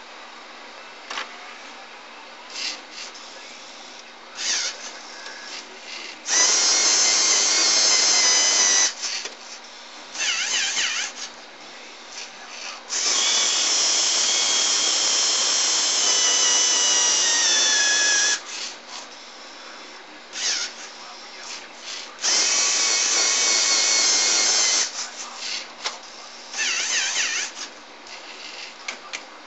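LEGO Mindstorms motors and plastic gears of a homemade CD changer whirring in three long runs of a few seconds each, with shorter whirs and clicks between them.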